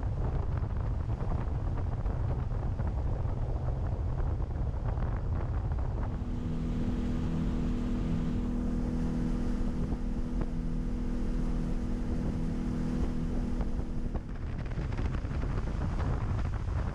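Motorboat running across open water, with wind buffeting the microphone as a heavy low rumble. From about six seconds in to about fourteen, a steady engine drone of several held tones sits over the rumble.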